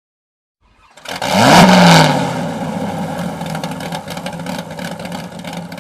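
A car engine starting about a second in: it catches, rises quickly in revs to a brief loud peak, then settles into a steady idle with fine ticking.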